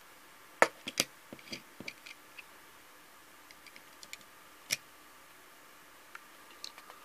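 Small hard clicks and clacks of a diecast model car being handled and set down on the plastic decks of an Oxford Diecast car transporter. A quick cluster of sharp clicks comes about a second in, one louder click a little past the middle, and a few faint ticks near the end.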